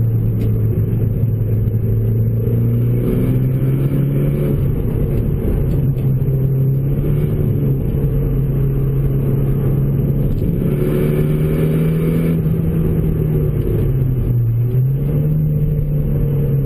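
Renault Mégane RS's turbocharged 2.0-litre four-cylinder through a K-Tec Racing 70 mm full exhaust, heard from inside the cabin while driving: a steady, loud, low drone. Its pitch steps up a few seconds in, dips briefly near the end and picks up again as the revs change.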